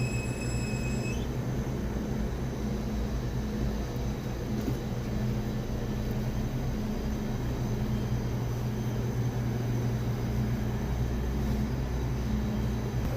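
A steady low mechanical hum and rumble, with a faint high whine that cuts off about a second in.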